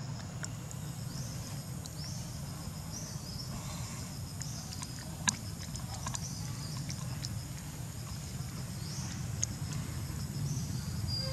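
Forest ambience: scattered short, high chirps of insects and birds over a steady low rumble, with a sharp click about five seconds in.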